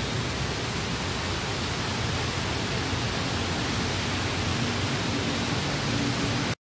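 Steady rushing outdoor noise with no distinct events, cutting off abruptly near the end.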